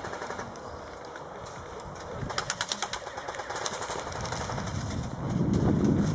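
A burst of airsoft gunfire, a rapid string of sharp clicks lasting under a second, a little past two seconds in. Near the end a low rumble of wind on the microphone grows louder.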